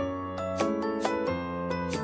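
Background music: a melody of held pitched notes over sustained bass notes, with light percussive hits.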